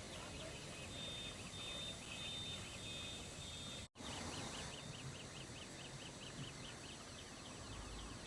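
Outdoor background noise with repeated high-pitched chirps, broken by a brief cut to silence about four seconds in.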